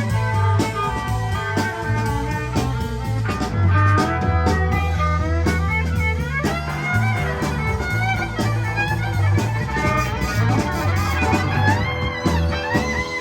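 A live band playing an instrumental passage: a drum kit keeping time under a steady bass line, with a lead melody that bends and slides in pitch.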